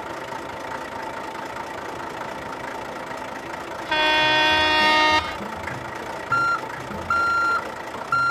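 Truck sound effects over a steady hum: one long truck-horn honk about four seconds in, then three short reversing beeps near the end.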